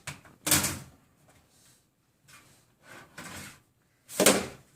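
A handful of short knocks and sliding scrapes of household objects being handled, the loudest near the end.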